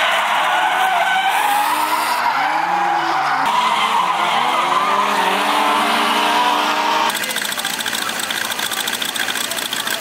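Drift cars on track: engines revving up and down with tyres squealing and skidding. About seven seconds in, the sound cuts abruptly to a fast, even mechanical clatter.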